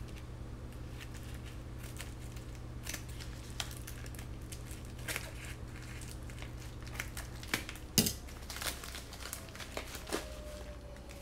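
Scissors cutting open a receiver's packaging pouch, with the pouch crinkling and scattered snips and clicks, the loudest a sharp click about eight seconds in. A steady low hum in the background stops at about the same moment.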